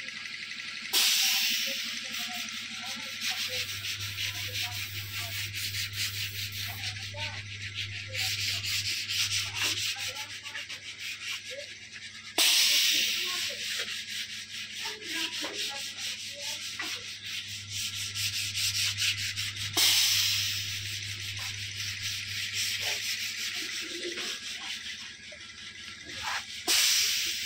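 Loud rushing hiss that starts suddenly four times and fades slowly after each start, over a low steady hum that comes and goes.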